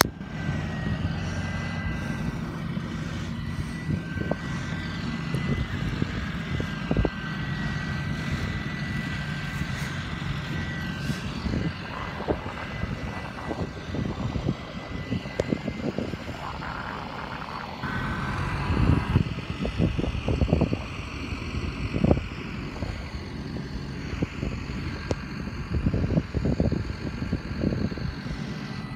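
Farm tractor diesel engine running steadily, with a high whine over it for roughly the first eleven seconds. In the second half there are scattered knocks and bumps.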